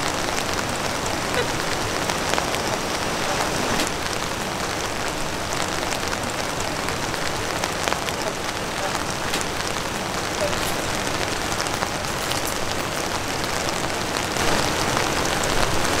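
Steady rain falling, a continuous hiss dotted with many small drop ticks.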